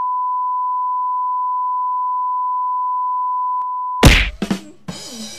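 Steady high-pitched test-tone beep, the kind played over TV colour bars, holding one pitch for about four seconds. It cuts off in a loud whack, followed half a second later by a second hit, then noisy laughter-like voices.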